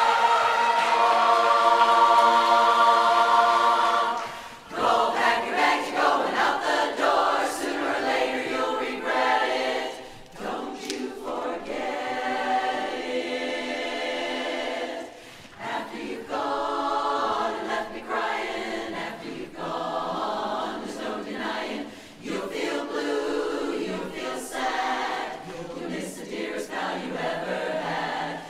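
Women's barbershop chorus singing a cappella in close harmony. A chord is held for about the first four seconds, then the song moves on in phrases with short breaks between them.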